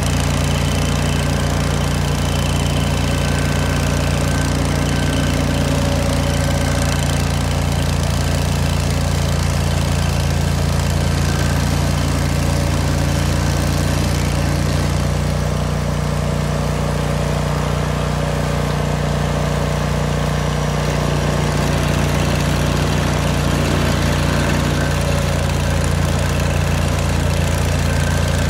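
Old Vermeer stump grinder's engine running steadily, easing off slightly about midway and then picking back up.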